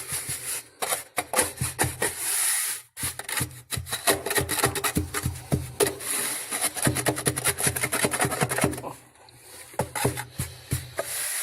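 Rapid scraping and rubbing with quick knocks from hand masonry work on a fireplace base, easing off briefly near the end.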